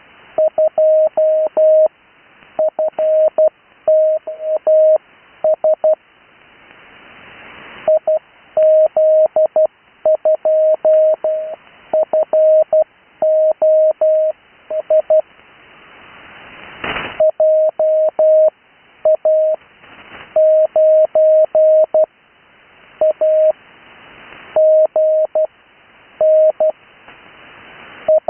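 Morse code (CW) callsigns sent as a single steady mid-pitched tone keyed on and off in quick dots and dashes, grouped into characters with short pauses between them. It is heard over an amateur radio receiver, with band hiss that swells in the gaps and one sharp static crack about 17 seconds in.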